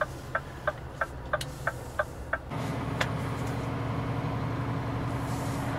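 Scania truck cab: a turn-signal indicator ticking about three times a second over the diesel engine at idle. About two and a half seconds in the ticking stops and the engine note rises and holds steady as the truck moves off.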